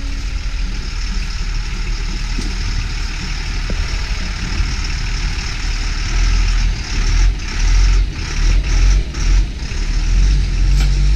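Caterpillar 3116 diesel of a 1995 Stewart & Stevenson M1078 LMTV truck running as the truck crawls along through mud and slush. It grows louder and more uneven from about six seconds in as the truck comes close and passes.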